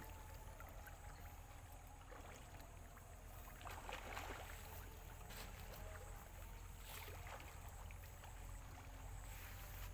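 Quiet outdoor ambience: a steady low rumble, with a few faint soft sounds about four and seven seconds in.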